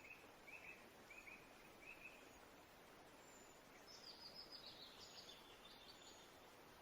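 Faint birds chirping over quiet outdoor background: four short calls in the first two seconds or so, then a higher, quicker twittering run from about four to six seconds in.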